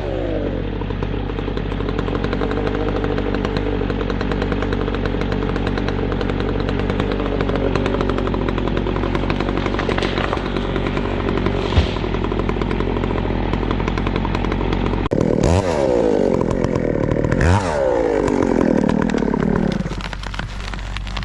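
Two-stroke chainsaw running steadily at full throttle. About two-thirds of the way in it is revved up and down several times, and near the end the revs fall away.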